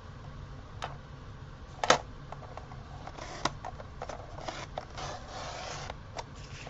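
Thin paper cutout being handled and rubbed: soft rustling and scraping with a few sharp clicks, the loudest about two seconds in, as the delicate paper is worked at the risk of tearing.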